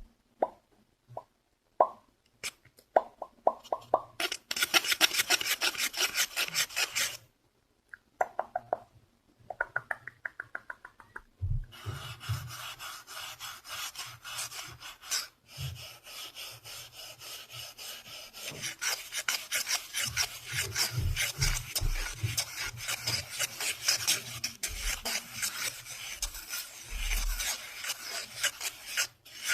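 ASMR trigger sounds: a run of sharp pops that come quicker and denser a few seconds in, a brief pause, a few more pops, then, from about twelve seconds on, fast continuous scratching and rubbing with soft low thumps.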